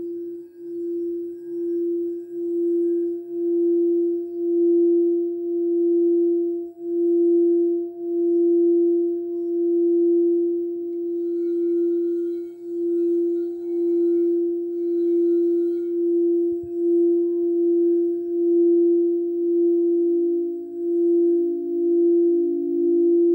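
Frosted crystal singing bowls rubbed around the rim with a wand, giving a sustained ringing tone that builds over the first few seconds and pulses about once a second. A second, slightly lower bowl tone joins near the end.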